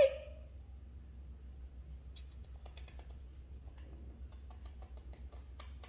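Scattered light clicks and small rattles, irregular and growing busier toward the end, after a short high squeal right at the start.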